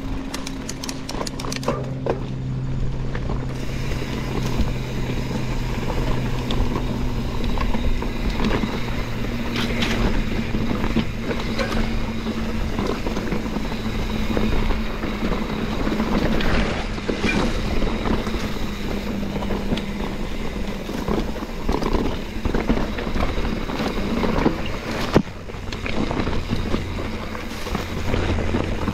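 YT Capra enduro mountain bike rolling down a rough, rocky single track: tyres crunching over gravel and rocks, with the bike's frame and parts clattering in constant small knocks and wind rushing over the microphone. A sharp knock stands out near the end, and a low steady hum runs underneath.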